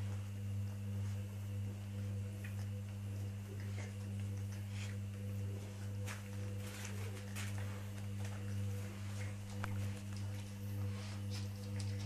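Steady low hum of two tones, one an octave above the other, with faint scratches and rustles of puppies shifting on a rug.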